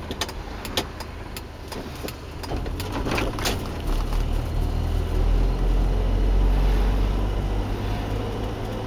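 Car engine and road noise heard from inside the cabin while driving, a steady low hum that grows louder from about two and a half seconds in as the car picks up speed. A few light clicks come in the first few seconds.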